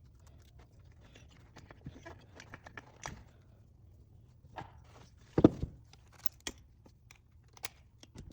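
Small metal engine parts and hand tools being handled during a teardown: scattered light clicks and taps, with one louder knock about five seconds in.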